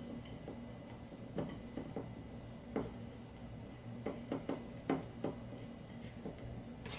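Soft, irregular taps and light knocks as raw, floured chicken wings are set down and shifted by hand on a ceramic plate, over a faint steady hum.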